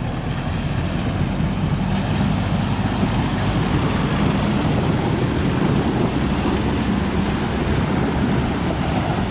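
Toyota four-wheel drive towing a camper trailer through a river crossing: the engine runs under load while the tyres push a bow wave and water splashes and surges around the wheels, a steady rush with a low rumble under it.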